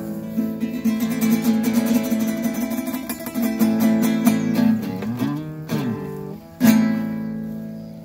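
Acoustic guitar strummed fast, closing the song with one last loud strum about two-thirds of the way in that rings out and fades.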